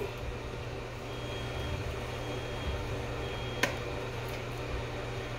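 Steady low kitchen hum, with a single sharp click of metal tongs against the foil baking pan about three and a half seconds in.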